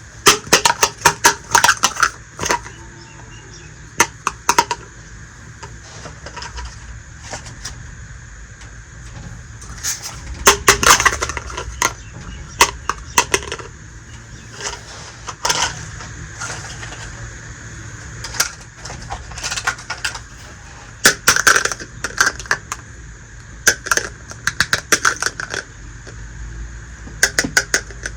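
Miniature toy kitchenware pieces clicking and clinking as they are handled, in short flurries of sharp clicks with pauses between.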